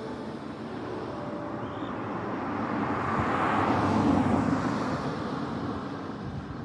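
A passing vehicle: a rush of noise that swells to a peak about halfway through, then fades away.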